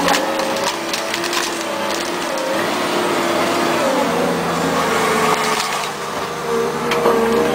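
Bulldozer engine running, its pitch slowly rising and falling, with sharp cracks and snaps of wood splintering and being crushed.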